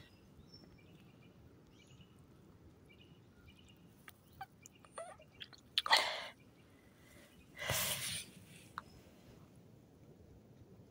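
Quiet background with faint high bird chirps, a few small clicks, and two short rustling bursts of noise about six and eight seconds in.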